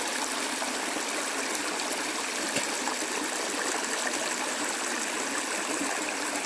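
Small stream flowing: a steady rush of running water.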